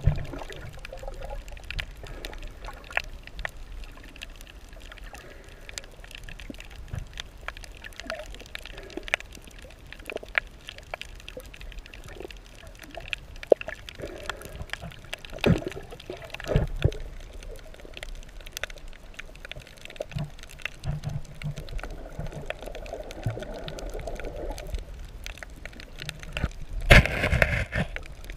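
Underwater water sounds picked up by a submerged camera: low gurgling and sloshing with many scattered clicks and crackles, and a louder rush of water about a second before the end.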